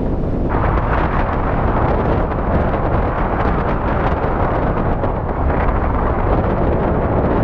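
Airflow of a paraglider in flight buffeting the camera's microphone: loud, continuous rushing wind noise. It gets stronger and brighter about half a second in.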